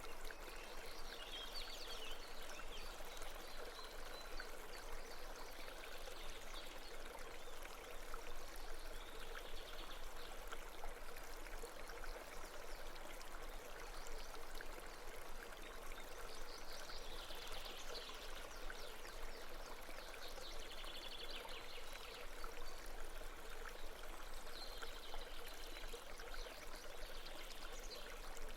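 Small stream babbling and trickling steadily over stones.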